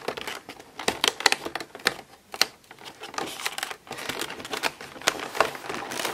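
Fingers pushing in and prising open a perforated cardboard door on a makeup advent calendar and handling the boxed item behind it: a run of irregular sharp clicks and taps with rustling between them.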